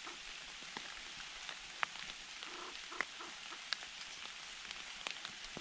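Light rain on wet forest leaves: a steady soft hiss with scattered sharp ticks of single drops.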